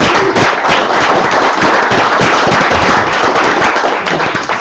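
Audience applause: many hands clapping at once in a dense, steady crackle that dies away at the very end.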